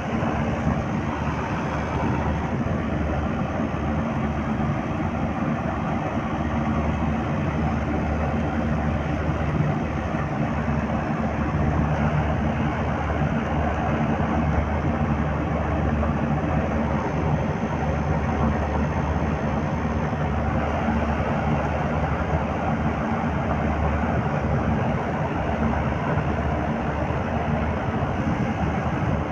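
Trane air-conditioning unit running with a steady mechanical hum and a low drone, from a compressor that the uploader calls bad.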